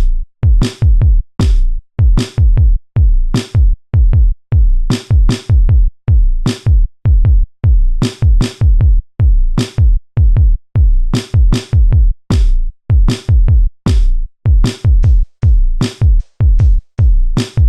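Electronic dance music with a heavy drum-machine beat: deep bass kicks and sharp snare or hi-hat hits in a steady rhythm.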